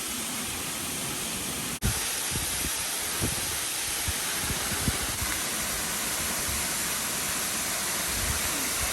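Wind blowing across the microphone: a steady rushing noise with scattered low buffeting thumps, briefly cut off about two seconds in.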